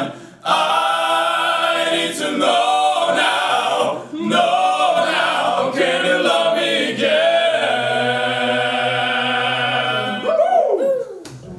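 A four-man vocal group singing together a cappella in harmony. Near the end the voices slide sharply down and the singing stops.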